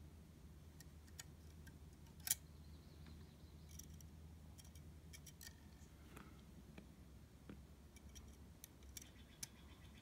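Near silence with faint, scattered small clicks and ticks from small metal butane-torch parts and a thin igniter wire being handled, including one sharper click about two seconds in, over a low steady hum.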